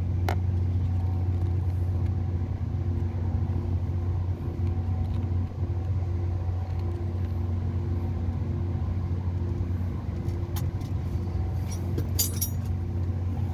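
Steady low mechanical hum, engine-like, at a constant level. A light metallic clink of tools sounds just after the start, and a few more come near the end.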